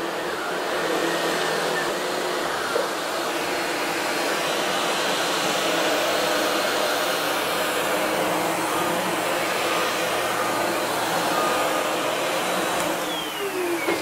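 Sebo Dart commercial upright vacuum with its ET1 power head running steadily over carpet. About a second before the end the motor is switched off and its whine falls in pitch as it spins down.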